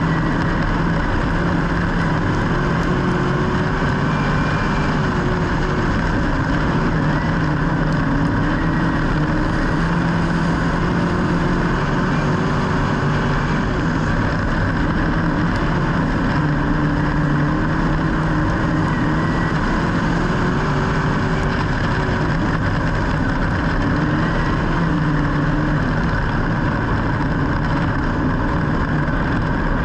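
Engine running steadily and loudly, its pitch stepping up and down slightly every few seconds.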